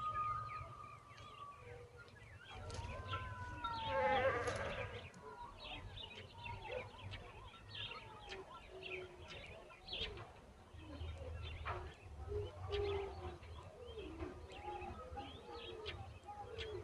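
Nestling birds chirping with many short, rapid begging calls, a louder call about four seconds in, and a low rumble underneath.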